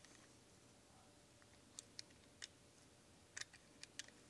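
Near silence with a handful of faint, light clicks in the second half, from a BMW double VANOS piston and its seal ring being worked on by hand in a rag while the ring is cut off.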